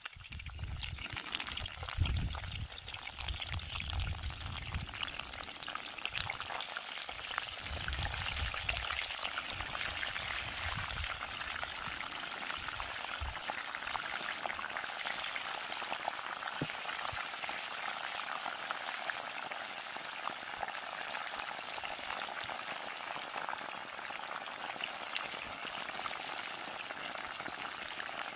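Deep frying: perilla-leaf rolls filled with loach, cheese and vegetables sizzle and crackle steadily in a wok of hot oil. This is their second fry. The sizzle builds over the first few seconds as the rolls are lowered in, with some low bumps in the first dozen seconds.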